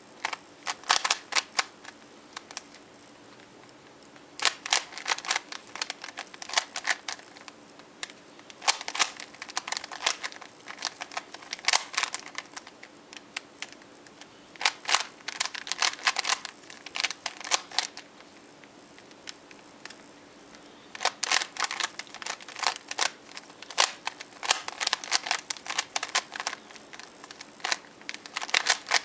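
Rubik's Cube being twisted fast by hand: rapid dry plastic clicks of the layers turning, in five bursts of two to seven seconds with short pauses between them.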